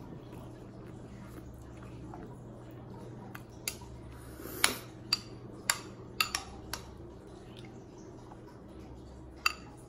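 Metal spoon clinking against a glass bowl of tomato and onion salad as it is scooped from: a run of sharp clinks, mostly between about three and a half and seven seconds in, and one more near the end. A steady low hum lies underneath.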